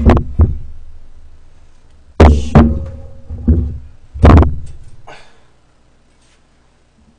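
A thin metal tray and a dial platform scale being lifted off and set aside: about five loud knocks and clatters of metal on metal and on the desk, one of them followed by a brief ringing of the tray.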